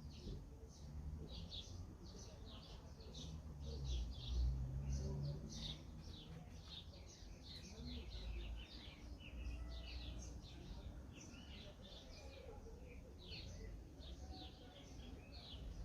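Small birds chirping: a rapid, busy run of short high chirps, several a second. A low rumble lies underneath and swells about four seconds in.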